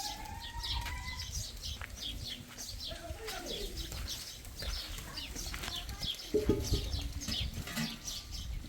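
Sheep bleating, with one louder bleat about six seconds in, over continual small-bird chirping and a low rumble of wind.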